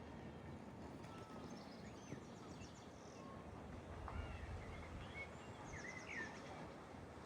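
Small songbirds chirping and whistling, with a fast high trill twice, over a steady low outdoor rumble that swells briefly about four seconds in.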